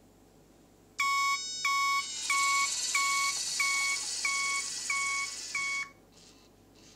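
Electronic reversing-warning beeper from the RC semi truck's built-in sound module: about eight evenly spaced high beeps, a little more than half a second apart, with a steady hiss under most of them. The beeping stops just before the end.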